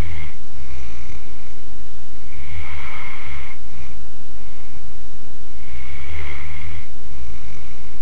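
Sleeping mastiff snoring: a loud snore about every three seconds, each followed by a shorter, fainter breath.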